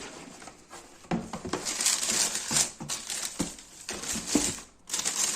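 Shoe packaging being handled: irregular crinkling and rustling with small knocks, starting about a second in.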